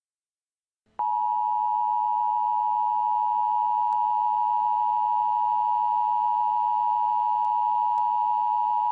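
Emergency Alert System two-tone attention signal, 853 Hz and 960 Hz sounding together as one steady tone. It starts about a second in, holds unchanged for about eight seconds, then cuts off. It signals that an emergency alert message is about to be read.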